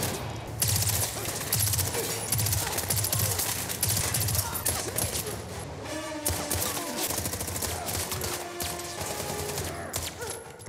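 Rapid, dense automatic gunfire from an action-film sound mix, shots coming in quick bursts throughout, with shouted voices in the middle.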